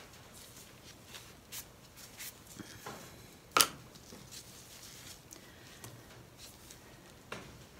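Light handling noises on a craft table: scattered soft clicks and paper-like rustles, with one sharp click about three and a half seconds in.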